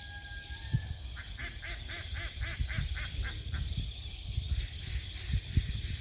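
Migratory waterfowl calling: a quick run of about ten honking, duck-like calls, about four a second, that stops about two thirds of the way through. Underneath are a steady low rumble, a few thumps and a faint high hiss.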